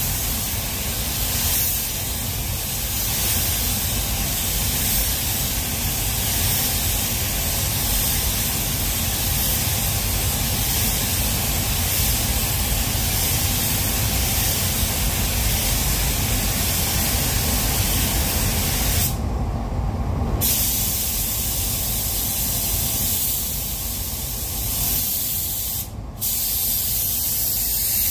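Compressed-air paint spray gun hissing steadily as it lays clear coat over a car panel. The trigger is released for about a second and a half near the end, and again briefly. A steady low rumble carries on underneath.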